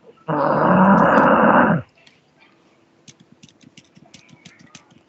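Loud snoring: one long snore lasting about a second and a half, starting just after the start, with a second one beginning right at the end.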